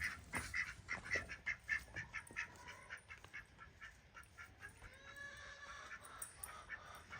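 Domestic waterfowl calling, a quick run of short, repeated honks or quacks that thins out after a couple of seconds. A few fainter calls follow, with some gliding notes about five seconds in.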